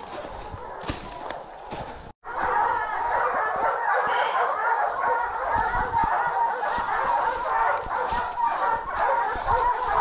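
Footsteps crunching through dry leaves, then, after a cut about two seconds in, a pack of hounds baying together without let-up. It is the steady chop of hounds treeing a bear, the sign that the bear is up a tree.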